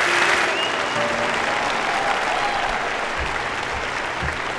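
Large audience applauding at the end of a speech. The clapping swells up at the start and then holds steady.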